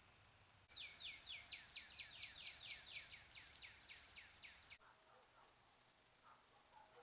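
A songbird singing a rapid run of about sixteen clear whistled notes, each sliding down in pitch, about four a second. The song lasts about four seconds and cuts off abruptly.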